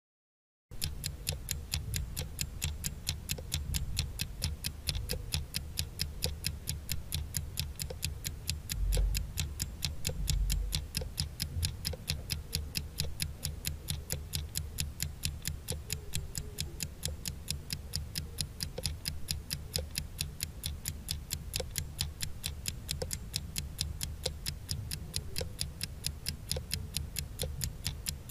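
Countdown-timer sound effect: a clock ticking fast and evenly, starting about a second in, over a low rumble.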